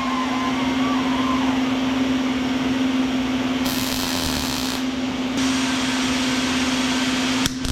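A metalworking tool in a welding shop runs steadily: a constant low hum under a hiss that brightens for about a second around the middle, with a sharp click near the end.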